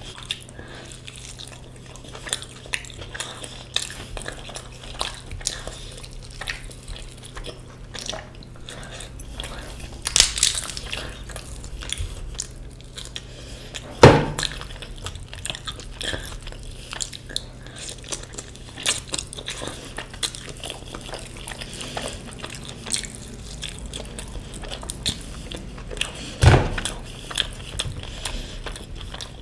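Close-miked eating sounds: chewing and biting with many small wet clicks over a steady low hum, and a few sharp knocks, the loudest about fourteen seconds in and again about twenty-six seconds in.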